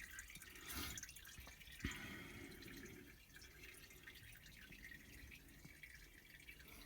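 Faint dripping of engine oil from the drained oil pan into a catch pan, the flow down to drips near the end of draining. A couple of small knocks come about one and two seconds in.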